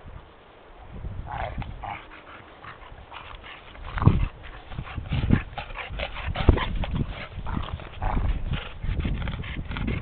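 Two dogs, one a red chow chow, play-wrestling in snow: scuffling and crunching of snow under their paws, with short dog vocal sounds between one and two seconds in. The scuffles get louder from about four seconds in.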